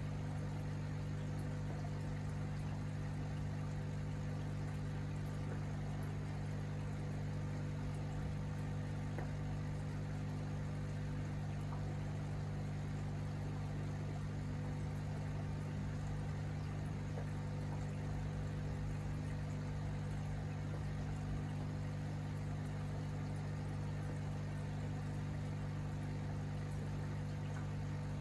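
Aquarium equipment giving a steady low hum of several fixed pitches, with faint bubbling of aerated water.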